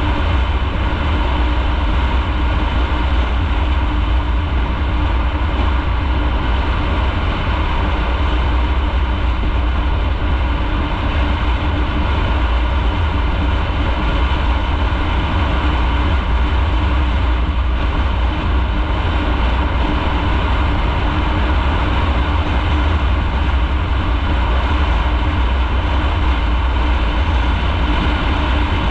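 Motorcycle riding at a steady speed, heard from on the bike: the engine runs evenly under a constant rush of wind and road noise, with no gear changes or revving.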